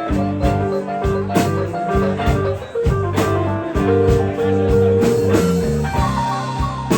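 Live blues band playing a slow blues, with electric guitar over bass and drum kit. A long held guitar note comes in the middle, between regular drum hits.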